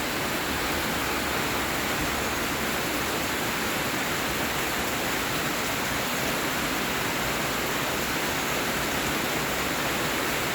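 Heavy rain pouring down, a steady, dense hiss of falling water.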